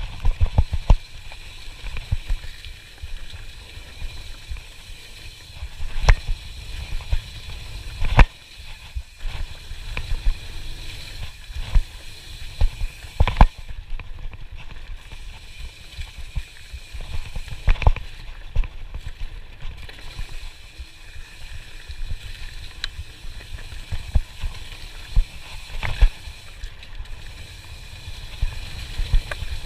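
Mountain bike riding a rough dirt trail: a steady low rumble from wind and vibration on the camera, with frequent sharp knocks and rattles as the bike bounces over bumps and roots.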